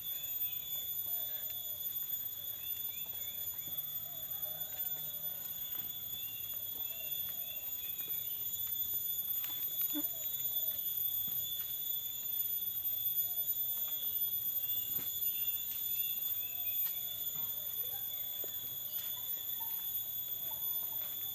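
Woodland ambience: a steady, high-pitched insect drone with many short bird chirps over it, and a few faint footsteps on a dirt path.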